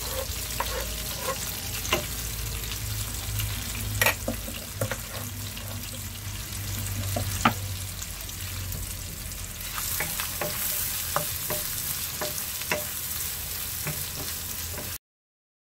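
Chopped onions sizzling in hot oil in a wok as they sweat, stirred with a wooden spoon that knocks against the pan now and then. The sound cuts off suddenly near the end.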